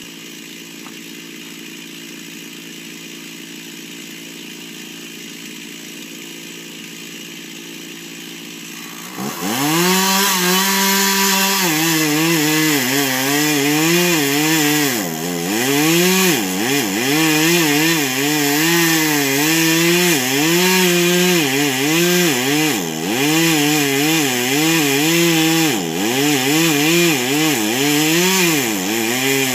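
Two-stroke chainsaw running steadily and fainter at first, then throttling up loud about nine seconds in and cutting through a downed tree. Its pitch dips and recovers again and again as the chain loads up in the wood.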